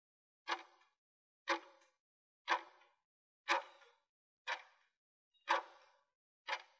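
Countdown timer sound effect ticking once a second, seven short ticks, each with a brief ringing tail.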